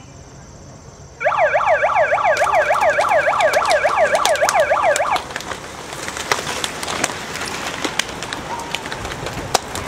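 Emergency vehicle siren in fast yelp mode, sweeping up and down about four times a second, starting about a second in and cutting off about five seconds in. After it, a steady hiss with scattered sharp clicks.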